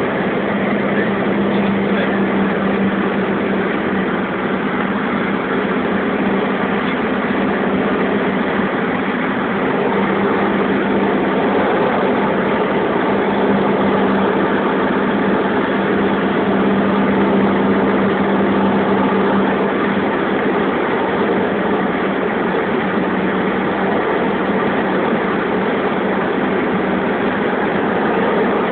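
Light single-engine propeller aircraft in flight, its piston engine and propeller running at a steady drone, heard from inside the cockpit.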